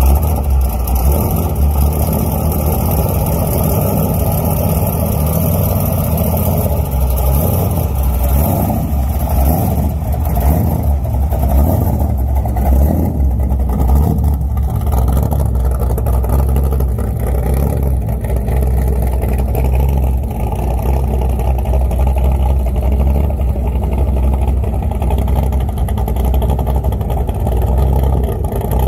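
Supercharged V8 of a tubbed pro street muscle car running at a loud, steady idle, a deep rumble with no clear revs.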